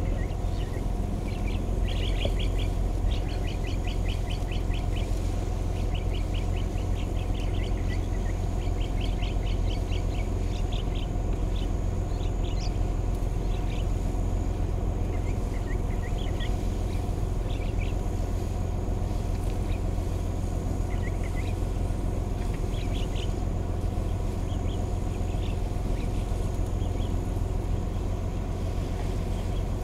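Wild birds calling in short, rapidly repeated chirping trills over a steady low rumble.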